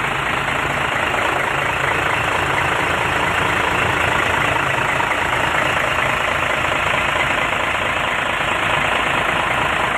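Hino truck's diesel engine idling steadily, with a clattering running note.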